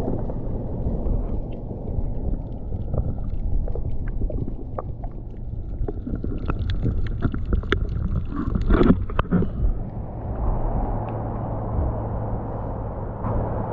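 Water moving around a camera held underwater in shallow sea water: a low, muffled rumble with scattered clicks and crackles, densest a little before two-thirds of the way through. Near the end, as the camera reaches the surface, it turns into a steadier hiss of lapping water.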